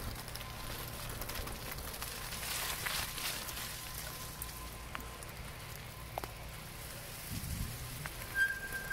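Bicycle tyres rolling over a leaf-strewn woodland trail, an even crackling patter of many small ticks. A short high-pitched squeal comes in near the end.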